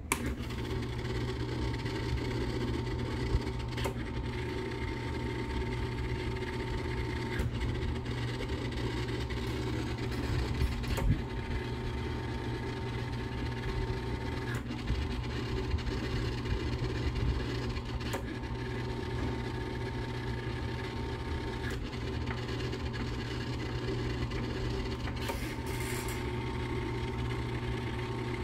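Unicolor Uniroller Model 352 motor base switched on at the start and running, rolling a Cibachrome colour processing drum: a steady motor hum with a sharp click about every three and a half seconds.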